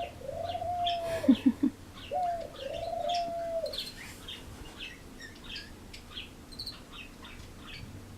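Birds calling: two held cooing calls, each about a second and a half long, near the start and about two seconds in, over short high chirps repeating throughout.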